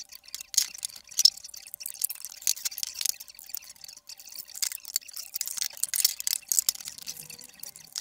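Small hard plastic fingerboard-park pieces clicking and clattering as they are handled and fitted together, an irregular run of quick sharp clicks.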